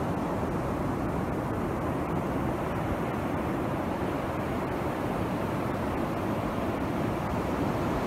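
Surf breaking on a sandy beach, with wind on the microphone: a steady, deep rushing with no distinct wave crashes or breaks.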